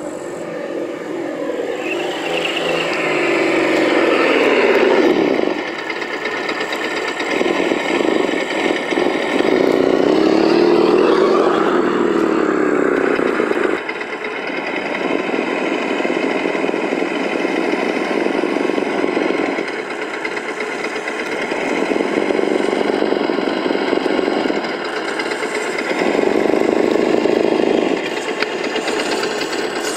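Simulated engine sound from a SENSE Innovations ESS-One+ sound module in an Axial SCX10 RC crawler, revving up and down with the throttle as the truck drives. In the first half the pitch swoops up and down; after that it holds steadier, rising and falling in loudness every two to three seconds.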